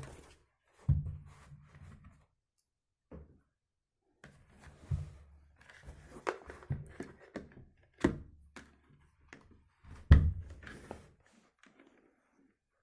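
Handling sounds: a series of dull thunks, knocks and clicks as a cordless drill battery and the tools used to check its voltage are picked up and set down. The loudest knocks come about a second in, near the middle, and near the end.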